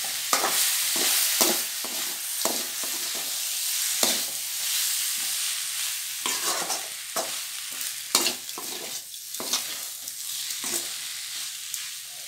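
Goat intestine (boti) pieces frying in oil and masala in a metal kadai, a steady sizzle, while a steel ladle stirs them, scraping and knocking against the pan in quick irregular strokes.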